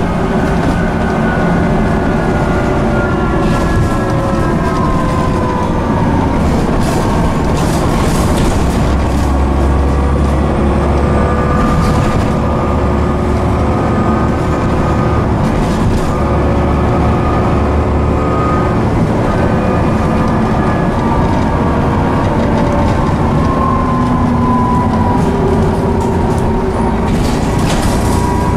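Cummins ISCe diesel engine and Voith D851.3E automatic gearbox of a Transbus ALX400/Trident double-decker bus, heard from inside the saloon while under way. A whine slowly rises and falls in pitch over a steady drive noise, with a heavier low drone in the middle stretch and a few short rattles or knocks from the bodywork.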